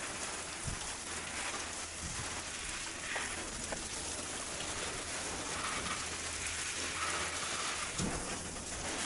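Steady hissing spray of water from a hose nozzle, splashing onto a mountain bike's frame and the metal grate floor of a bike-wash bay, with a few faint knocks.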